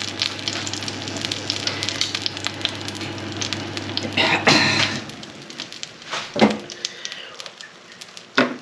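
Fat and juices sizzling and spitting on a hot metal roasting tray holding a spatchcocked tandoori chicken fresh from under the grill, a dense crackle throughout. A steady low hum stops about five seconds in, just after a brief louder rush of noise, and a couple of short knocks come near the end.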